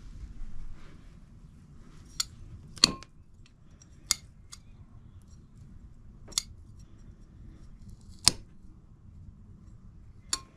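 Sharp metallic clicks and clinks of cooking utensils, about seven, irregularly spaced a second or two apart, over a low steady rumble.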